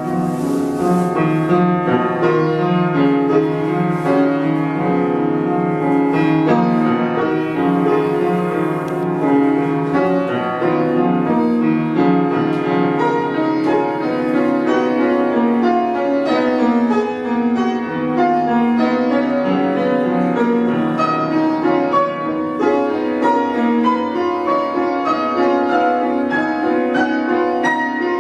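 Piano playing a continuous stream of notes and chords. A brief soft hiss rises over it about a second in and again around eight seconds in.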